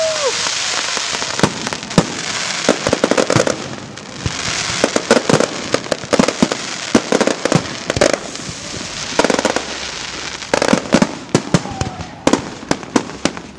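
Aerial fireworks display: a rapid, irregular string of sharp bangs from shells bursting overhead, over a steady rush of noise.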